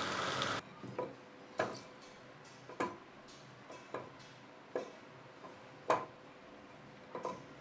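Wood lathe running steadily for about half a second, then it cuts off. About seven separate sharp wooden knocks follow at uneven intervals as a square timber blank is handled and set on the lathe.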